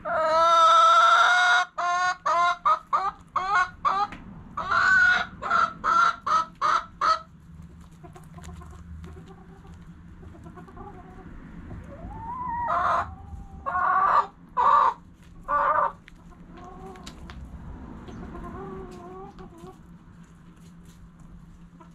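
Backyard chickens calling: a long wavering call at the start, then a quick run of about a dozen short clucks. After a quieter stretch, a few loud squawking calls come around the middle, followed by softer clucking.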